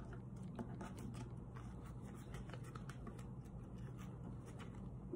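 Faint rustling and crinkling of construction paper, with small irregular clicks, as a folded paper stem is tucked into a paper pumpkin; a steady low hum runs underneath.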